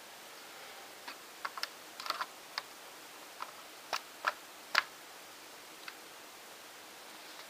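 Sharp plastic clicks and clacks of a Lego bolt-action rifle being handled, about a dozen at uneven intervals, the loudest a little before 5 seconds in, stopping about 6 seconds in.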